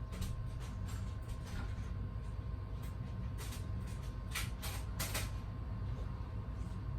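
Irregular clicks, taps and short scrapes of hand tools and parts being handled during hands-on work on the car, the loudest a cluster of sharp clicks about four to five seconds in, over a steady low rumble.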